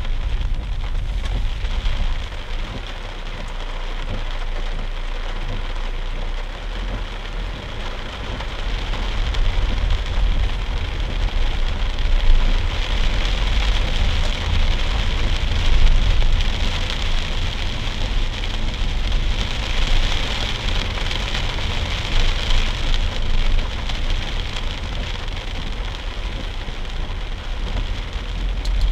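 Rain falling on a car's windshield and roof, heard inside the moving car, over a low rumble of engine and tyres on the wet road.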